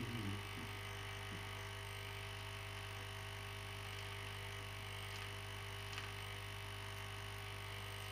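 Aoyue INT852A+ hot air rework station running: its air pump gives a steady low buzz under an even hiss of air.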